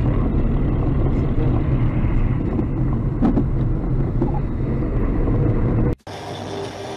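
Steady low road and engine rumble inside a moving car's cabin, with a brief knock about three seconds in. About six seconds in it cuts off abruptly, replaced by a much quieter sound with faint steady tones.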